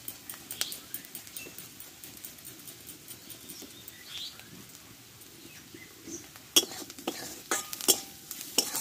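Fresh ginger rubbed on a hand grater over a metal wok, a soft scratching. Near the end, a steel spatula clanks against the wok several times as it stirs the frying onions.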